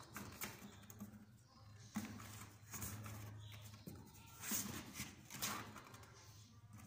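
Kittens scrambling in and around a cardboard box: claws scratching and paws bumping on the cardboard in short, irregular scuffles.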